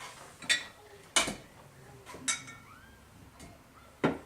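Kitchenware knocking and clinking on a counter: four sharp hits spread about a second apart, the third followed by a short ring.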